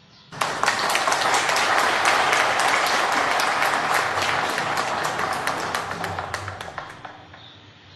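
Applause sound effect: a crowd clapping, starting suddenly about half a second in and fading out over the last few seconds.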